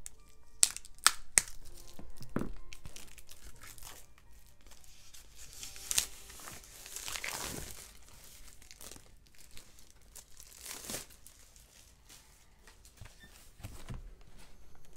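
Plastic shrink-wrap crinkling and tearing as it is pulled off a stack of cardboard game tiles, with three sharp snaps in the first second and a half and the loudest tearing about six to seven and a half seconds in, then again near eleven seconds.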